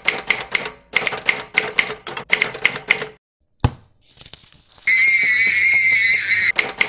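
Typewriter keystroke sound effect: rapid sharp clicks, several a second, in three runs over the first three seconds, then a single thump. About five seconds in, a high wavering sustained sound lasts about a second and a half before the keystrokes start again.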